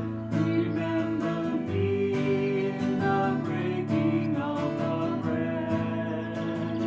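Instrumental music led by a strummed acoustic guitar, its chords in a steady rhythm.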